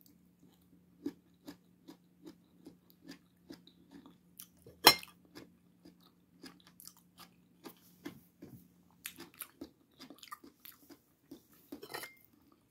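A person chewing food close to the microphone, with many small irregular mouth clicks, roughly three a second. One sharp, louder click about five seconds in. A faint steady low hum stops about nine seconds in.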